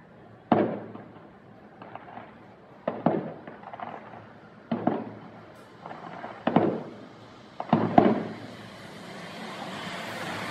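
Aerial firework shells bursting in a display: about six sharp booms a second or two apart, each trailing off in a rumbling echo, two of them in quick succession near the end. A hiss builds up over the last second or two.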